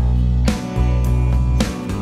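Background music with a steady beat over a sustained bass.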